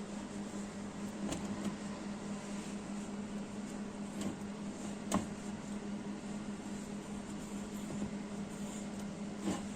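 A steady low hum with a few light clicks and taps, the loudest about five seconds in, as new brake pads are handled and coated with copper anti-seize paste.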